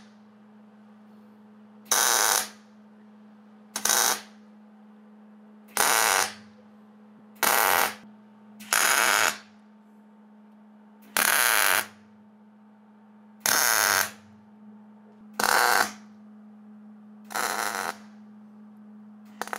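MIG welder laying short spot welds along a steel frame rail: nine bursts of arc crackle, each under a second long, about two seconds apart, over a steady low hum.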